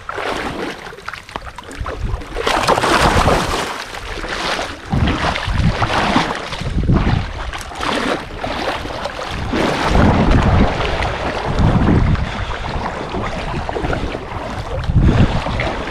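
Water sloshing and splashing in irregular surges as a person wades through a shallow river, with wind buffeting the microphone.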